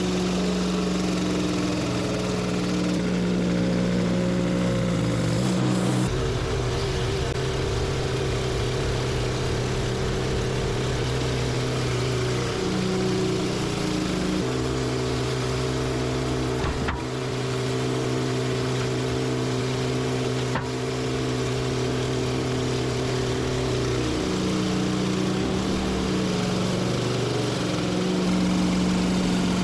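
Band sawmill's engine running steadily under load through a large hemlock log. Its pitch shifts down and back up several times, and there are two brief clicks in the middle.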